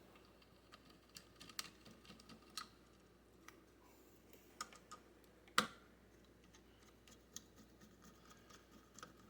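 Faint, scattered clicks and taps of a low-profile CPU cooler being seated onto a motherboard's threaded mounting posts, with one sharper click about five and a half seconds in.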